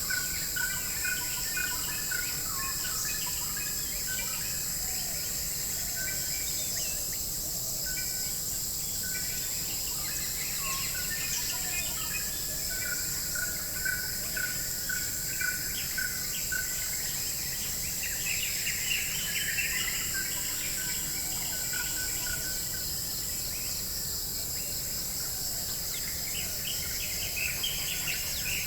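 Forest ambience: a steady high-pitched insect chorus, with birds calling over it in series of short repeated notes and a brief spell of busier chirping about two-thirds of the way through.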